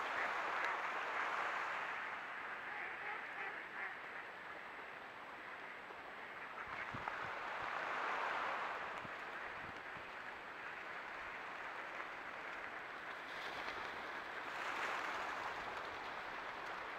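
A flock of mallards quacking together, a dense mass of calls that swells and fades several times.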